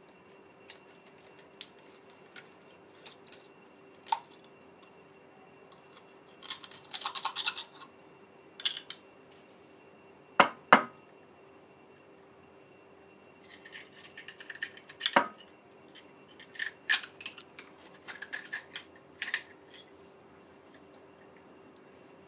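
Oyster knife scraping and clicking against the ribbed shell of a live blood clam (akagai) as it is pried open and the meat cut free: scattered sharp clicks, including two loud ones a little under halfway through, and short bursts of scraping. A faint steady hum sits underneath.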